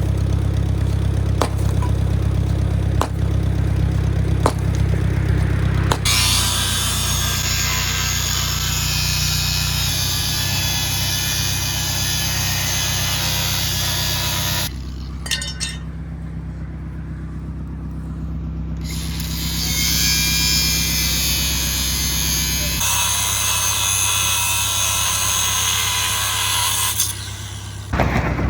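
An engine idling steadily, overlaid by long stretches of harsh tool noise that start and stop abruptly.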